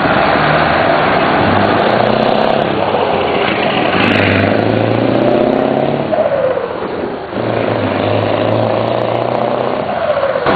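Scania 144 530's V8 diesel engine pulling hard under acceleration, its revs climbing, then falling at a gear change about six to seven seconds in before climbing again, with another drop near the end.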